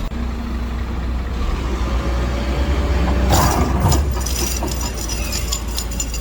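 Heavy diesel machinery running steadily, with a short burst of noise about halfway through followed by a quick run of sharp metallic clanks.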